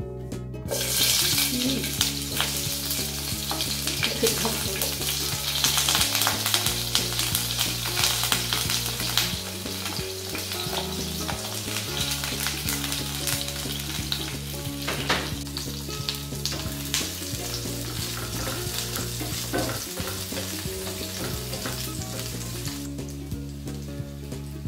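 Sliced red onion hitting hot cooking oil in a nonstick frying pan and frying with a steady sizzle, with the scrapes and taps of a spatula stirring it. The sizzle starts about a second in and is loudest for the first several seconds, then settles to a gentler fry.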